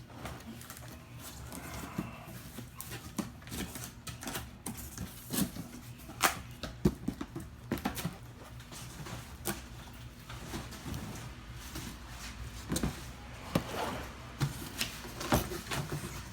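Cardboard boxes being handled as one box is packed back inside another: irregular knocks, taps and scrapes, with a faint steady low hum underneath.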